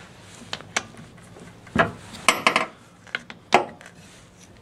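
Metal clicks and knocks from handling a Husqvarna 550 chainsaw's clutch side cover and bar-nut area by hand and with a tool. There are several sharp strikes, with the loudest in a quick cluster of three a little past the middle.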